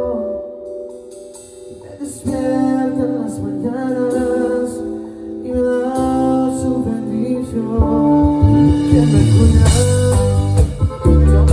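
A band playing live with a singer, guitar and drums. The music drops quieter just after the start and picks up again about two seconds in. The bass and drums come in heavier for the last few seconds.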